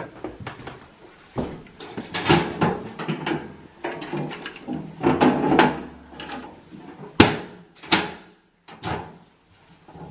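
Irregular knocks, rattles and scrapes of a rifle and its cleaning gear being handled, ending in two sharp clicks.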